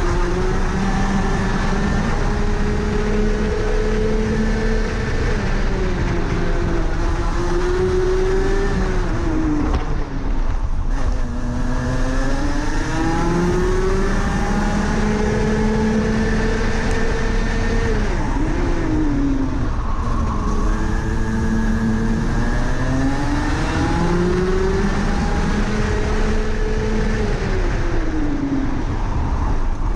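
Rotax Max Senior 125 cc single-cylinder two-stroke kart engine heard onboard at racing speed. Its pitch climbs steadily along the straights and drops sharply each time the driver lifts for a corner, about three times.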